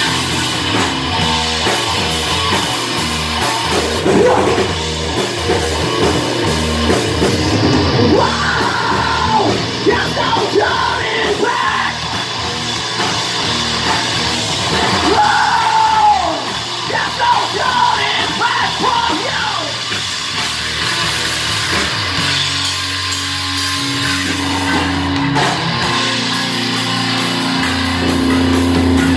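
Live rock band playing loud: electric guitar, electric bass and drum kit with a singer's vocal over them. About two-thirds of the way in the singing stops and the guitars hold steady low notes.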